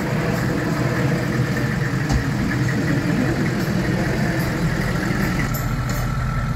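Engine of a lifted off-road vehicle idling steadily, a low even hum.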